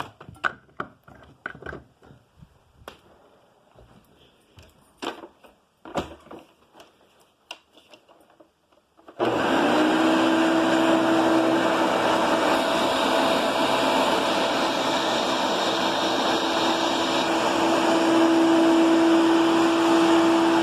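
Handling clicks and knocks, then about nine seconds in a Hoover Breathe Easy direct-air upright vacuum switches on and runs steadily and loudly, with a motor whine over the rush of air.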